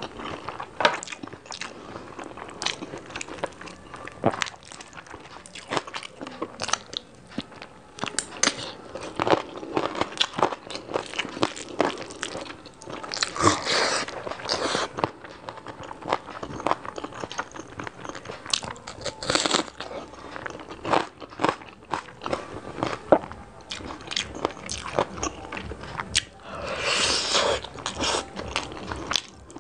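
Close-miked ASMR eating: a person chewing mouthfuls of rice pulao and curry eaten by hand, with many short mouth clicks. Louder stretches of chewing come a little before halfway, around two-thirds of the way through and near the end.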